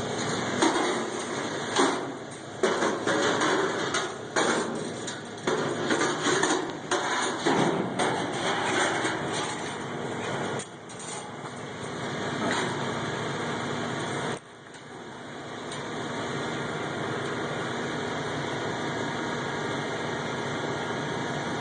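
Irregular knocks, rattles and rustles of hands-on fence-repair work during the first half or so, over a steady low hum. The knocking stops about two-thirds of the way in and the hum carries on alone.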